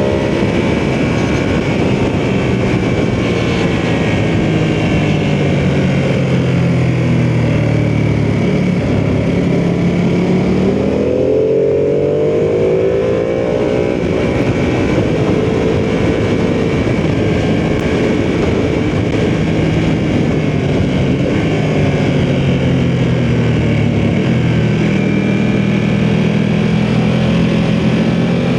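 Ducati sportbike engine under way on the road, the revs easing down early on, climbing again about ten seconds in, holding fairly steady, then rising once more near the end, over a constant rush of noise.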